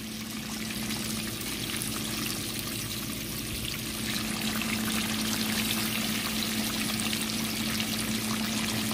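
Whiting fillets deep-frying in a pot of hot oil: a steady bubbling, crackling hiss that grows a little louder about four seconds in, with a low steady hum beneath.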